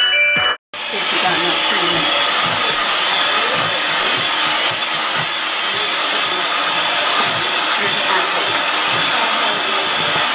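A small electric kitchen appliance, such as a blender or mixer, running steadily with a loud whirring hiss. It starts suddenly about half a second in.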